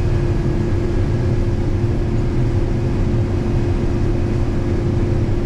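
Combine harvester running steadily while cutting corn: a continuous low rumble with a constant hum above it.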